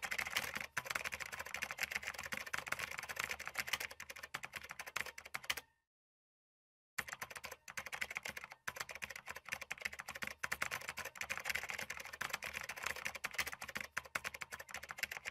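Rapid typing on a computer keyboard, a dense stream of key clicks. It stops dead for about a second some six seconds in, then carries on.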